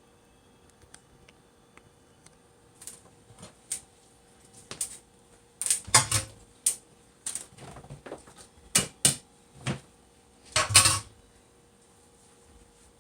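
Dishes, pots and utensils clattering as they are handled: a few seconds of quiet, then a string of irregular knocks and clinks, with the loudest clatters in the middle and shortly before the end.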